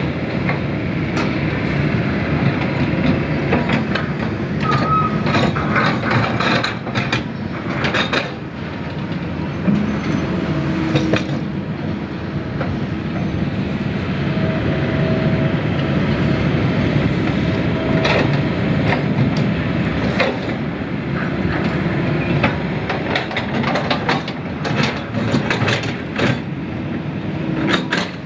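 Kobelco hydraulic excavators at work digging mud: a steady engine drone, broken many times by sharp knocks and clanks as the buckets and arms move, heaviest around a quarter of the way in and again near the end.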